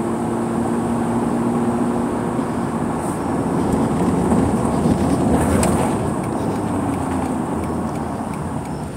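A car driving, with engine and tyre noise heard from inside the cabin. A steady hum fades out about three seconds in, and the noise swells a little around the middle.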